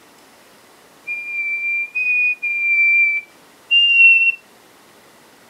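A person whistling with the lips: four high, steady notes, the second one short, then after a brief pause a last note a little higher in pitch.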